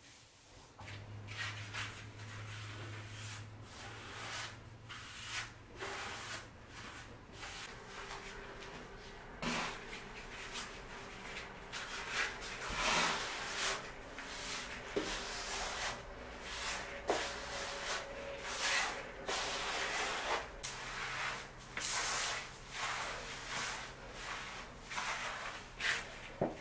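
Rubber grout float spreading and scraping pre-mixed grout across ceramic hexagon floor tiles, in a long series of irregular rubbing strokes, about one or two a second.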